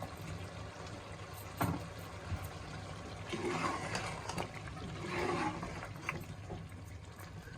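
Chicken and cream cooking in a karahi with a wet, liquid sound, a single sharp knock about a second and a half in, and two louder swishing sounds around the middle.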